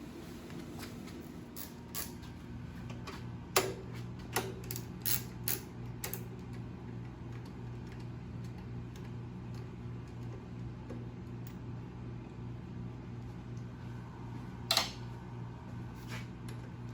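Hand tools and metal parts clicking and knocking against each other while working on a motorcycle: a quick run of sharp clicks a few seconds in, then two more near the end, over a steady low shop hum.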